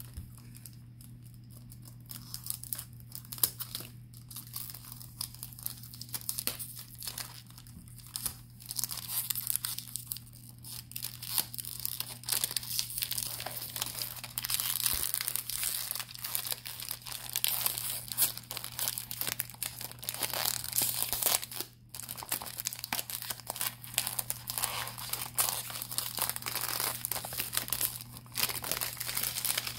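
Clear cellophane overwrap on a cologne box being picked at, torn and peeled off, crinkling and crackling. The crinkling is sparse at first and grows denser and louder from about halfway through.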